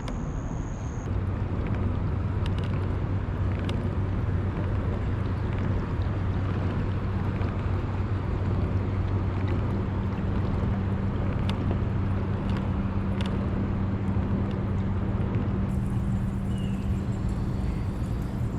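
Steady low engine hum over a rumbling background noise, with a second, higher hum joining about halfway through.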